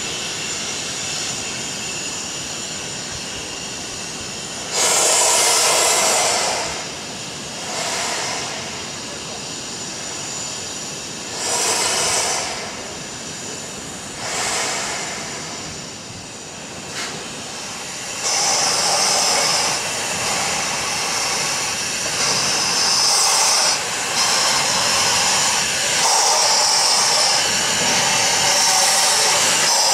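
DFB HG 3/4 rack-and-adhesion steam locomotive venting steam with a loud hiss, in separate bursts at first. From about two-thirds of the way in it hisses almost without a break, pulsing about once a second as it moves off slowly with steam blowing from its cylinders.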